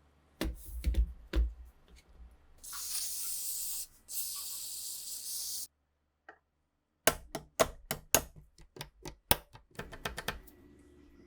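A few sharp clicks, then an aerosol spray can hissing in two bursts of about a second and a half each, then a quick run of sharp clicks and taps.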